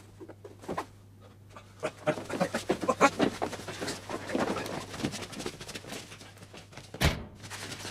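A physical struggle: a man crying out and panting while he is dragged, with scuffling and knocking sounds that are loudest in the middle. One sharp, heavy bang comes near the end.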